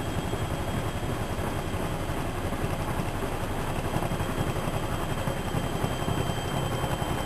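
Whirlpool Expert 1000 washing machine with its drum spinning at speed: a steady mechanical hum with a fast, even low throb.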